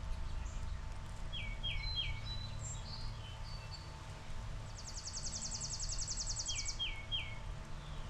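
Wild songbirds singing over a low, steady background rumble. A bird gives a phrase of three quick downslurred whistles twice, and between the phrases another bird gives a rapid, even trill lasting about two seconds.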